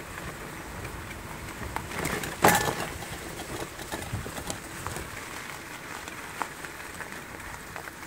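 Short, scattered calls of a flock of water birds over a tidal flat, above a steady low hiss, with one loud brief noise about two and a half seconds in.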